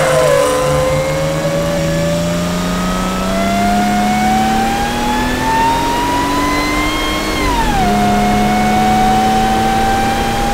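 Sprintex-supercharged Jeep Wrangler JK's 3.6-litre V6 accelerating hard. Its pitch climbs steadily, falls once at an upshift about three-quarters of the way through, then climbs again.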